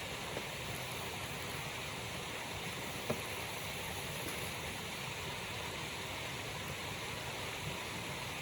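Steady rushing roar of a nearby waterfall, with a single short click about three seconds in.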